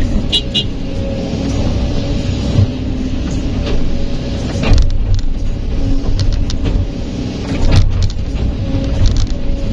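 Kobelco SK200 excavator running steadily under load with a droning hydraulic whine while dumping dirt into a dump truck bed. Several sharp knocks from the bucket and dirt striking the truck, the loudest about halfway through and again near the three-quarter mark.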